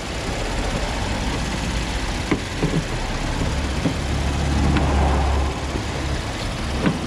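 A car engine idling steadily; its low rumble swells for a second or so about four seconds in. A few light plastic clicks come from the headlight housing being handled.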